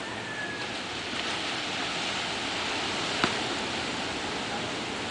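Steady rush of sea surf breaking on a pebble shore, with a single sharp knock about three seconds in.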